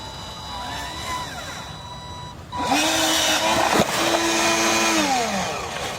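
Small electric motor of a radio-controlled model whining: faint at first, then from about two and a half seconds in a louder whine that rises quickly in pitch, holds steady and falls away near the end, with a short click in the middle.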